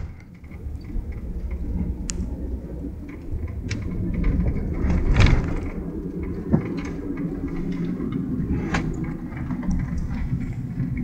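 Steady low rumble of a car on the move, heard from inside the cabin, with a few short knocks and clicks along the way.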